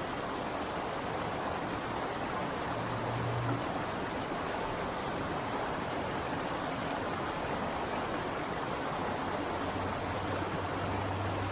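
A small river flowing steadily, its water running and babbling over stones in a constant rushing wash.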